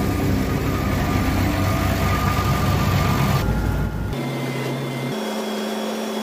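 Heavy engine running steadily, the tractor and TMR mixer at work processing bales. A little over three seconds in, the sound changes abruptly to a quieter, steady machine hum that steps up in pitch about a second later.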